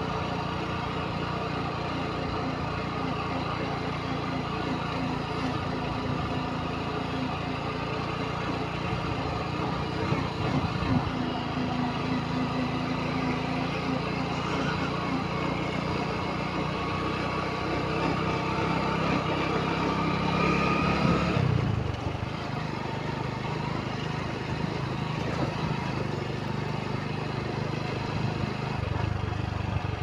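Motorcycle engine running as the bike rides along a dirt road. Its pitch rises slowly about halfway through, then drops away suddenly, and it carries on running steadily.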